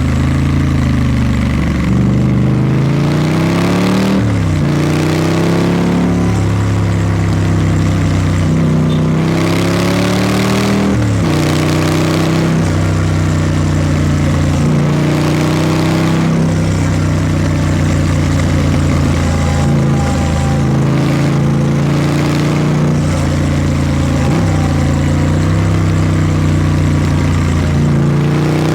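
Triumph Scrambler 900's parallel-twin engine and exhaust, its pitch climbing and dropping back sharply a few times in the first eleven seconds, then holding a steady note.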